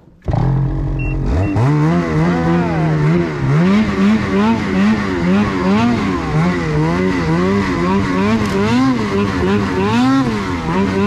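Ski-Doo 850 turbo snowmobile's two-stroke twin engine pulling away under throttle. It comes in suddenly, climbs in pitch, then rises and falls over and over as the throttle is worked on and off while climbing through trees in deep snow.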